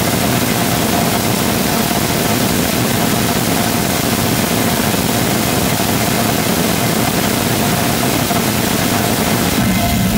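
Rotating detonation rocket engine combustor firing on a test stand: a loud, steady rushing noise with one steady tone running through it. The sound changes near the end as the engine shuts down.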